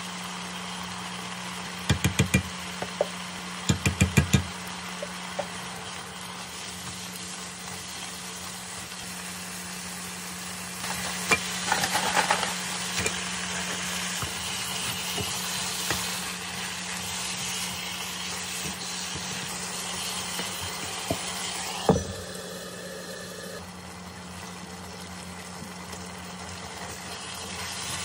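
Stir-fry cooking in a pan under a steady low hum. Quick clusters of clattering utensil or lid knocks come about two and four seconds in, a stretch of sizzling and stirring follows around the middle, and a single sharp knock comes near the end.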